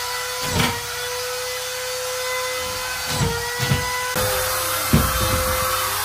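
A power tool running with a steady high whine that dips slightly now and then. Several short knocks sound over it.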